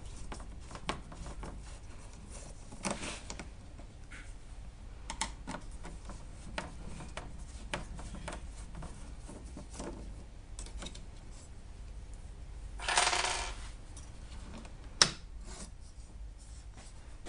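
Screwdriver turning small screws out of a Saeco espresso machine's plastic front panel: scattered faint clicks and scrapes of metal on screw and plastic. A louder scrape comes about thirteen seconds in, and a single sharp clack about two seconds later.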